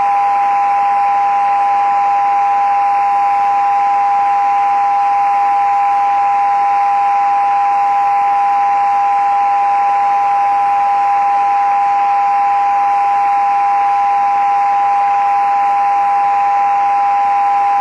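Kenwood HF transceiver's speaker on the 20 m band, putting out steady whistling tones, the beat of unmodulated carriers on frequency, over even band hiss.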